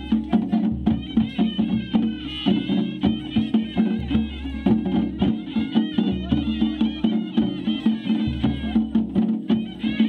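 Traditional Himachali procession music played live: dhol drums beating a fast, steady rhythm with a reedy wind melody wavering above a low, steady drone.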